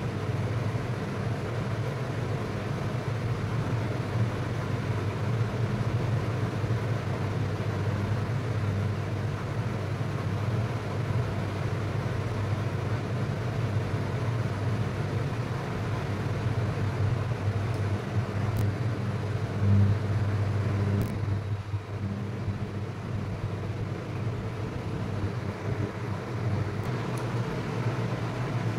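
Steady low machine hum with an even rushing noise underneath, holding at the same level throughout.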